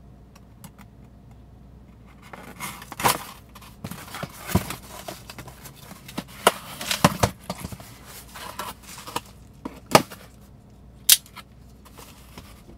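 A knife cutting through the packing tape on a cardboard box, with scraping, tearing and sharp cardboard clicks and knocks as the box is handled and its flaps pulled open. The handling sounds come irregularly, starting about two seconds in.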